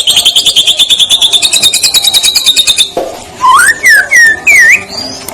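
White-rumped shama (murai batu) singing: a fast trill of rapidly repeated high notes for about three seconds, then a run of separate clear whistled notes sliding up and down in pitch.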